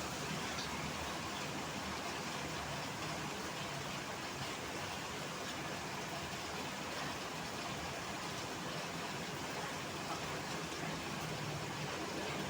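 Heavy rain falling in a steady hiss, with road traffic running underneath.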